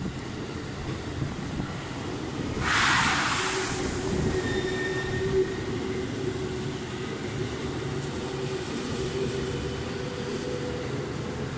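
Ten-car JR 211 series and 313 series electric multiple unit train passing through the station without stopping, with a steady rumble of wheels on rail. There is a burst of hiss about three seconds in, and a steady tone is held from about three and a half seconds to near the end.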